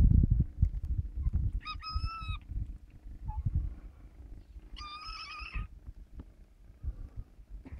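Kitten mewing twice, two high drawn-out mews about three seconds apart, over a low rumbling noise that is loudest at the start.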